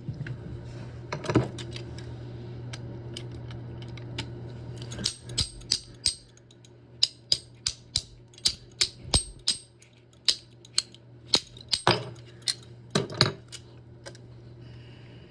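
A tool striking the rusted-on metal handle of a toilet supply shutoff valve to knock it loose: about twenty sharp metallic taps, roughly two a second, starting about five seconds in and stopping shortly before the end.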